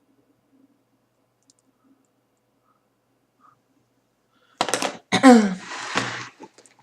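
A short, loud vocal outburst from a person: a sharp noisy onset, a voiced sound that glides down in pitch, then a breathy rush of air lasting about a second. It comes after several seconds of near silence.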